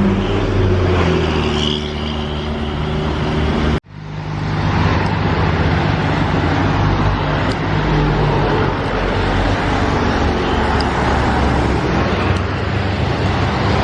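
Road traffic on an uphill road, with the steady engine hum of a large vehicle such as a bus running under load. The sound cuts out abruptly for an instant about four seconds in, then returns.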